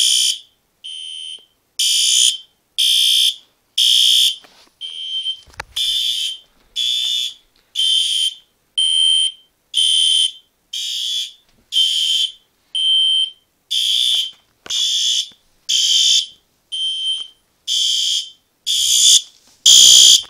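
Several fire alarm horns of a pull-station-activated alarm system sounding together in loud, harsh pulses about once a second, pitched near 3 kHz. This is a full alarm activation, with the horns not yet silenced.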